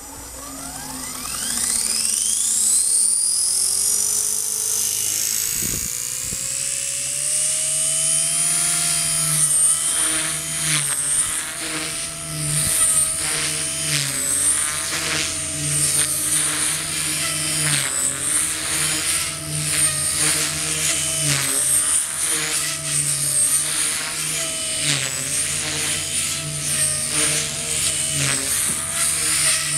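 Align T-REX 250 DFC micro electric RC helicopter spooling up: its whine rises steeply in pitch over the first several seconds. It then flies with a high, steady motor and rotor whine that wavers up and down in pitch as the throttle changes.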